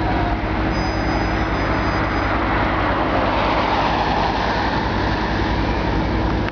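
An engine running steadily with a constant low hum, under road traffic noise that swells about three to five seconds in.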